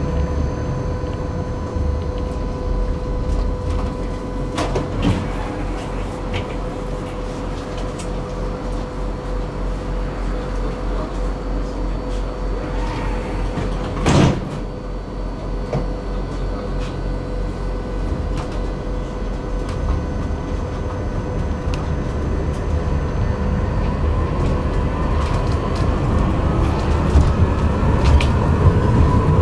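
Interior of a tram standing at a stop: a steady electrical hum with two held tones over a low rumble, broken by a single sharp clunk about halfway through. In the last few seconds the tram pulls away with a rising motor whine that grows louder.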